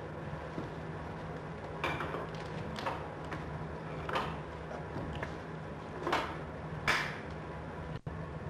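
Sawmill interior: a steady machine hum with five sharp knocks and clanks as a log on the saw carriage is handled. The sound cuts out briefly near the end.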